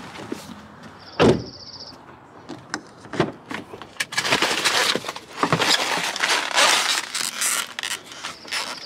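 A car door shutting with a thump about a second in, a few clicks, then a plastic takeout bag rustling and crinkling for several seconds as it is lifted from the passenger seat.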